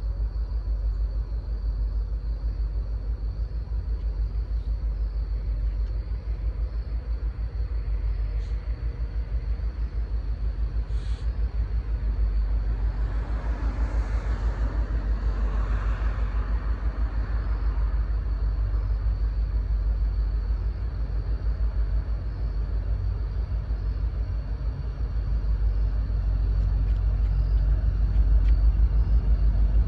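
Low rumble of an approaching freight train's six-axle diesel locomotives, growing louder near the end.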